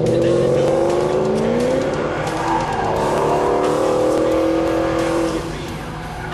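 A car engine revving hard, its pitch climbing and falling several times, while the tyres squeal as they spin in a burnout.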